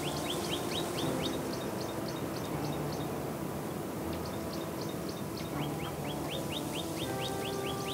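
A bird calling in fast series of short chirps, high twittering notes with lower falling ones. The chirps come in a bout at the start and another from about two-thirds in, over a steady low hum.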